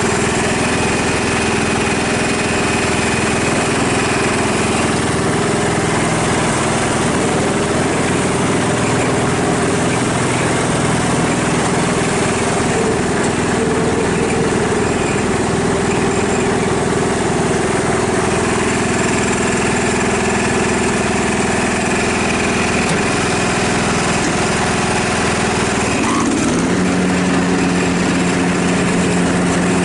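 Ride-on lawnmower's petrol engine running steadily as the mower is driven along, its note shifting to a new pitch about 26 seconds in.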